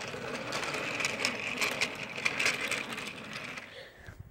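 Battery-powered Thomas toy engine's small electric motor whirring as it runs on plastic track, with light rattling clicks; it fades out a little before the end.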